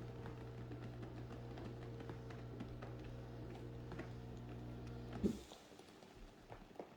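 TruMedic Symphony massage chair running with a steady electrical buzz and light irregular ticking. The buzz cuts off with a sharp click about five seconds in, leaving only faint taps.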